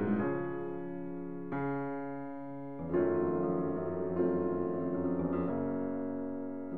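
Slow background piano music: a new chord struck roughly every second and a half, each fading away.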